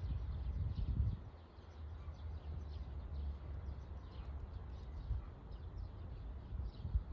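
Outdoor ambience: small birds chirping on and off over a steady low rumble, with a couple of brief low thumps, one about a second in and one near the end.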